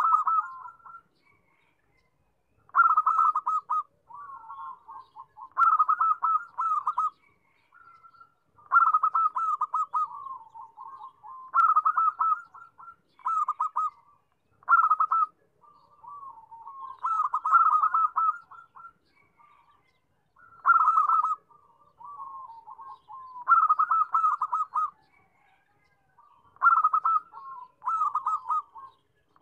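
Zebra dove (perkutut) singing: phrases of rapid, staccato coo notes repeated every two to three seconds, with softer, lower coos in between.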